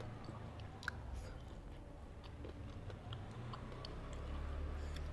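Soft chewing with small scattered clicks as fingers pick the last scraps of smashed fried chicken off a plate, with one sharper click about a second in.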